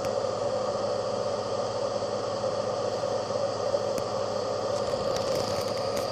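Cooling fan in the base of a Sparkmaker SLA resin 3D printer running steadily while its UV light cures the resin. A faint tick comes about four seconds in.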